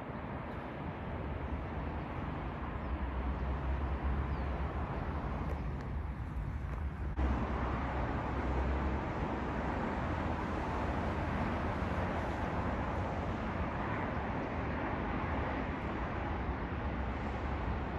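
Distant passenger train rumbling past behind trees, blended with road traffic noise as a steady low rumble under an outdoor hiss. The background shifts abruptly about seven seconds in.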